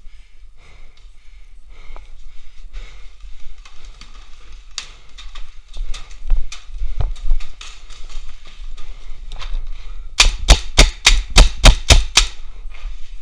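Paintball marker fired in a rapid string of about ten shots over two seconds near the end, after scattered fainter pops of markers firing across the field.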